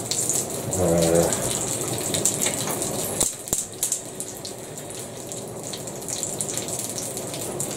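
Haggis frying in pans, a steady crackling sizzle with small spits. A brief low hum comes about a second in, and two clicks about three and a half seconds in.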